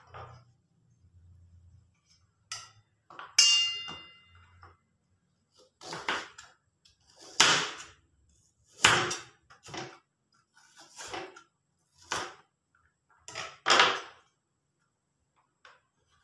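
A kitchen knife slicing small onions on a plastic cutting board: about seven separate cuts, roughly one every second and a half. A single metallic clink of metal on metal comes a few seconds before the cutting starts.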